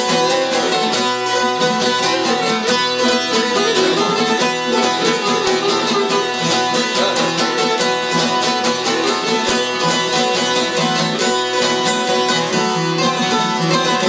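Albanian folk instrumental: several çifteli, two-stringed long-necked lutes, plucked in a fast, steady rhythm, with a fiddle bowed along.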